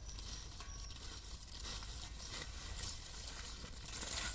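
Footsteps rustling through a mat of water hyacinth leaves, a run of soft irregular crackles.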